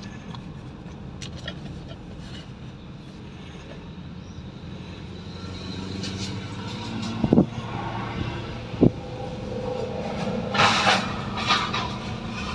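Car driving slowly, heard from inside the cabin: a steady low engine hum and road noise. Two sharp knocks come about seven and nine seconds in, and a louder rustling clatter follows near the end.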